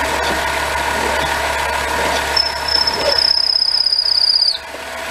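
Metal lathe running with a steady motor hum. About two seconds in, a loud, high-pitched, slightly wavering squeal from metal working against the spinning workpiece starts, then cuts off suddenly near the end.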